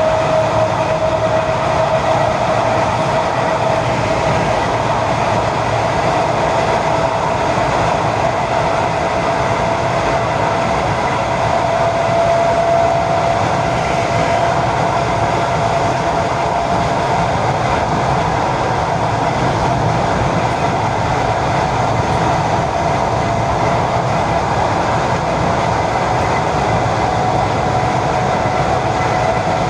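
ED4M electric multiple unit running between stations: a steady rumble of wheels and running gear, with a whine that rises slowly in pitch.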